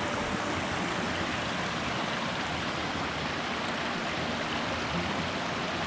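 Mountain stream rushing steadily, a constant full wash of water noise.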